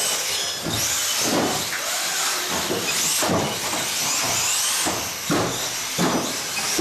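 1/18-scale electric off-road RC cars racing on a carpet track: several high motor whines rising and falling in pitch as the cars speed up and slow down, over a steady hiss.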